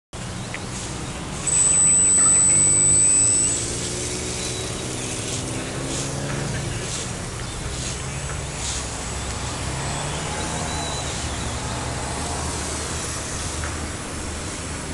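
Small electric RC airplane motor: a loud, steady high whine for about two seconds near the start as it throttles up for takeoff, then a fainter, wavering drone as the plane flies around.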